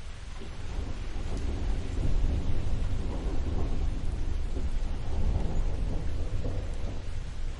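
A long roll of thunder rumbling low and deep, building about a second in and easing near the end, over the steady hiss of falling rain.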